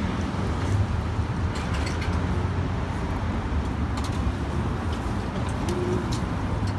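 Steady low rumble of outdoor urban background noise, with a few faint light clicks.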